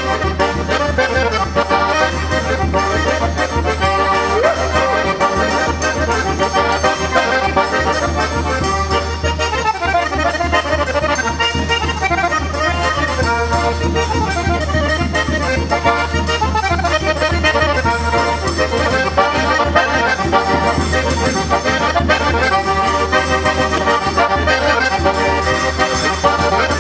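Folk dance tune played on a garmoshka (button accordion), with a hand-held double-headed drum beating time throughout.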